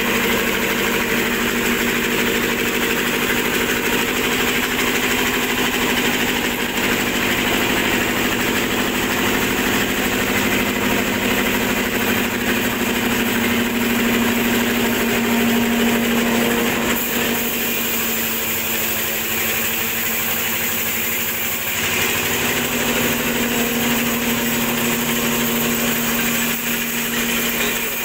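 Stationary engine running steadily as it belt-drives a sawmill bandsaw. Its sound changes for a few seconds past the middle, with less low rumble and more high hiss.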